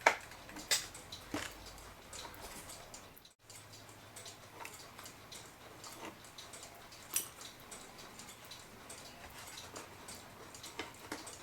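Faint, irregular clicks and taps of a screwdriver and small metal parts as screws are taken out of a mantel clock's case.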